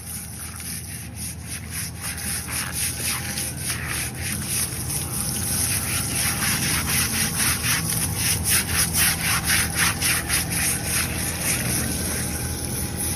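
A stiff hand brush scrubbing a wet elephant's hide in quick back-and-forth strokes, about four a second, growing louder about halfway through, with hose water running over the skin.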